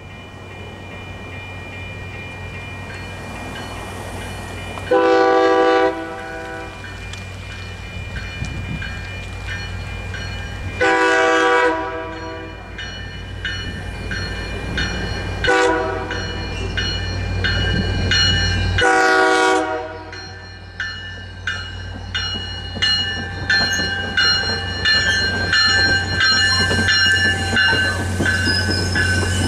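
Commuter train's horn sounding the grade-crossing signal, long, long, short, long, over a low diesel rumble that grows louder as the train nears, with crossing bells ringing at a steady beat. Near the end the coaches roll past.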